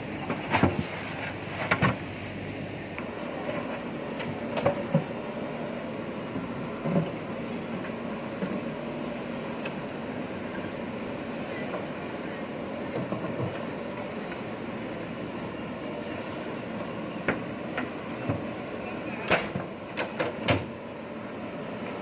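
JCB backhoe loader's diesel engine running steadily as the backhoe arm and bucket work soil in a trench. Scattered sharp metallic clanks and knocks come from the bucket and linkage, with a cluster of them near the end.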